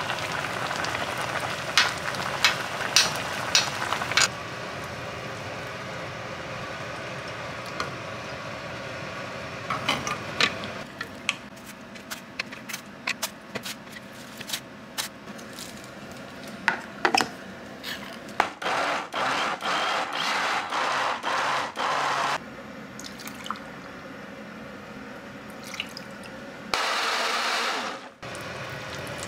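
Home-kitchen cooking sounds. A stretch of water-like noise is broken by sharp clicks and knocks of utensils. Later comes a run of about ten short noisy bursts in quick succession, and near the end a brief rush of noise.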